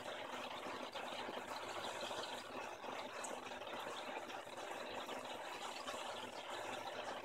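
Aquarium aeration bubbling steadily, a stream of air bubbles rising through the tank water.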